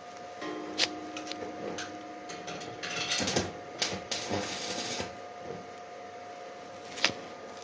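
Electric arc welding: a harsh crackling hiss for about two seconds in the middle, with a single sharp click near the start and another near the end, over a steady electrical hum.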